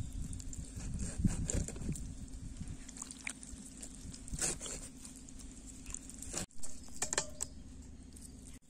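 Soft wet squelches, patters and knife scrapes from raw goat tripe being handled and cut over a steel plate, with a steady low hum underneath.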